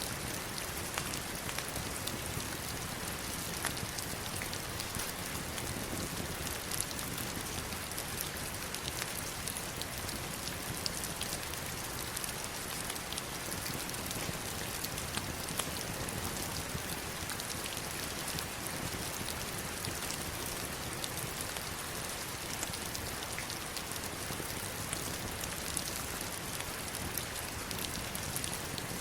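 Heavy rain falling steadily on stones and water, a dense even hiss with many single drop hits standing out as small ticks.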